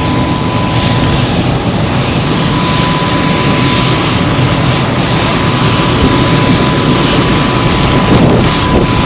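Jet aircraft running: a steady high whine over a loud, even rumble.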